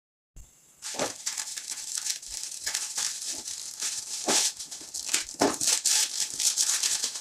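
Bubble wrap and plastic packaging crinkling and rustling as a parcel is unwrapped by hand. A dense run of crackles starts about a second in, with a few louder crinkles among them.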